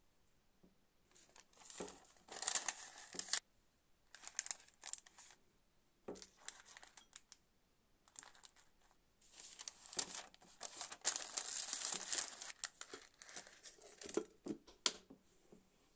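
Baking paper lining a glass bowl crinkling and rustling as open-faced sandwiches are handled and pressed into it, in several irregular spells, the longest and loudest in the second half.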